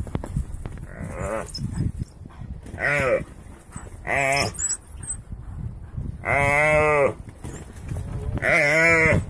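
A gemsbok oryx giving repeated wavering distress bleats while African wild dogs pull it down and bite it. There are four or five calls; the longest comes about six seconds in. A low scuffling runs underneath.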